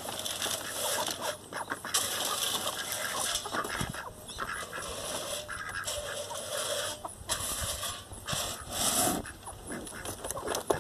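Dry dog food kibble pouring from a bag into a galvanized metal trash can: a rattling hiss that comes in long runs with a few short breaks.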